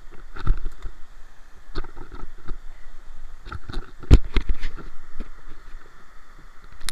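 Camera handled and pushed through leafy branches: irregular rustling and knocking, with a heavy thump about four seconds in, over a steady rush of river water.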